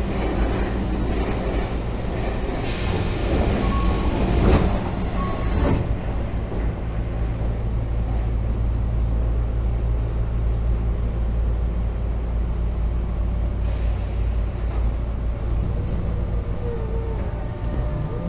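Inside a Tobu 9000 series train car standing still: a steady low hum of the running equipment and air conditioning. A few seconds in comes a loud burst of air hiss with two short beeps. Just before the end the chopper control's whine begins to rise in pitch as the train starts to move.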